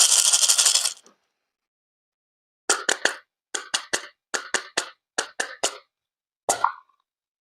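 A burst of hissing noise that stops about a second in, then a run of about a dozen sharp, hard clicks in quick pairs and threes, with one more click near the end.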